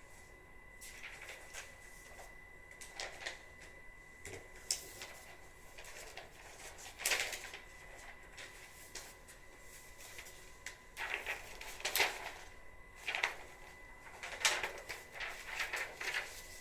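Soft, irregular rustling and scuffing from a napping Shiba Inu shifting on its bedding, in a dozen or so short bursts, over a faint steady high electronic tone.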